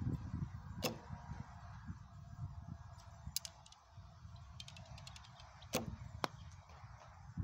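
Recurve bow shot twice: the string snaps sharply on release about a second in and again near the end, with a few lighter clicks between as the next arrow is handled. Wind rumbles on the microphone underneath.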